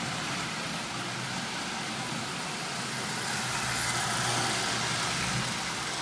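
Lionel 8902 toy steam locomotive running on three-rail tinplate track, pulling a train of cars: a steady motor whir and wheel rumble that grows louder as the train passes close, about three and a half to five and a half seconds in.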